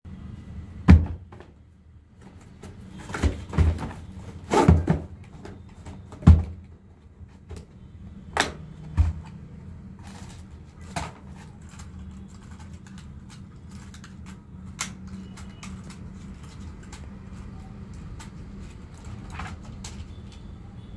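Unboxing handling noise: sharp knocks and clicks as a cardboard box and a hard plastic carry case are handled and opened, loudest in the first nine seconds or so, then softer clicks as the foldable toy drone is lifted out and its arms handled.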